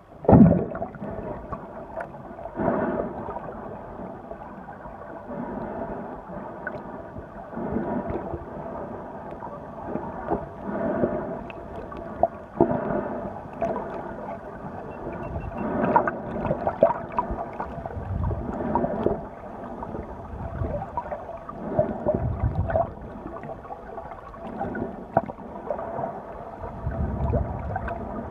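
Muffled underwater water noise heard through a phone microphone sealed inside a waterproof case: sloshing and gurgling that swells every few seconds, with a few small clicks.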